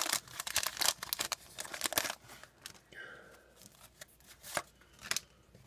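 Foil booster-pack wrapper crinkling as trading cards are pulled out of it, the rustling dense for about the first two seconds. After that come quieter rustles and a few light taps as the stack of cards is handled.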